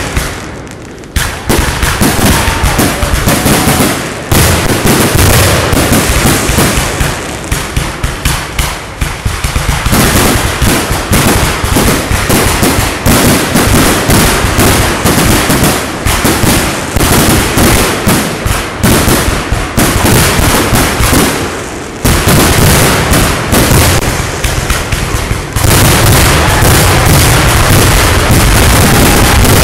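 Fireworks finale: a dense, rapid barrage of aerial shell bursts and crackling. The bursts come so close together that after about 25 seconds they merge into one continuous, very loud din.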